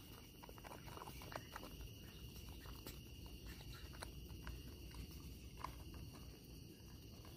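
Faint small clicks and sucking as a baby monkey drinks milk from a carton through a straw, over a faint steady high drone.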